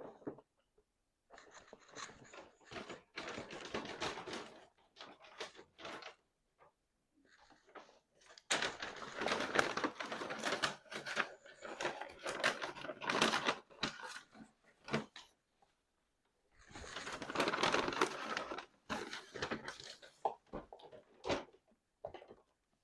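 Close-up chewing and gnawing on chicken wings: dense clicking and smacking mouth sounds in three long stretches with short pauses between them.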